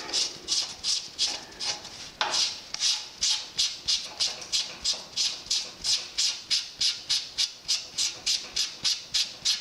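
Rhythmic squeaky scraping of metal on metal, about three strokes a second, as a threaded circular fitting on the swing arm is turned off by hand.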